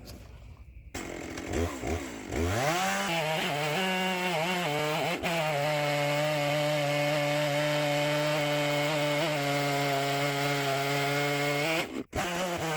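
Stihl chainsaw on an Alaskan chainsaw mill revving up about two seconds in, then running steadily at full throttle as it rips lengthwise through a hardwood log. The sound cuts out for an instant near the end.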